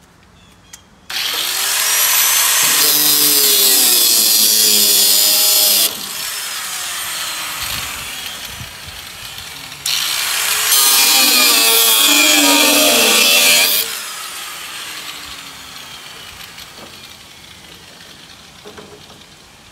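Handheld angle grinder cutting off small metal tabs, in two runs of about five and four seconds. Each run spins up with a rising whine and winds down with a falling whine.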